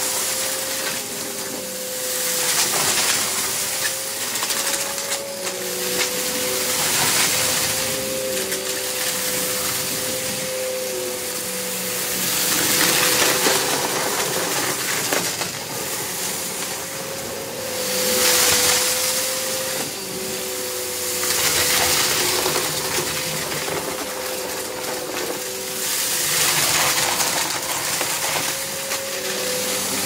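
Hoover vacuum cleaner running steadily with a motor whine, and a rush of noise that swells and fades every few seconds as it is worked back and forth picking up a test mess of debris.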